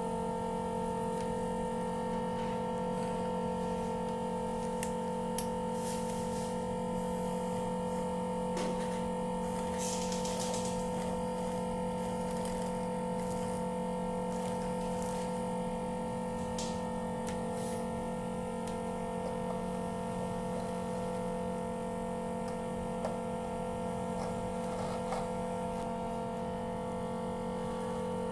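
A steady electric hum with light clicks and scrapes now and then, as old glue is scraped off an iPhone X screen with a glue removal tool.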